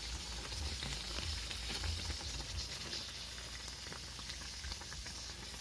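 Fry bake dough frying in a pot of hot oil: a steady sizzle with scattered small crackles.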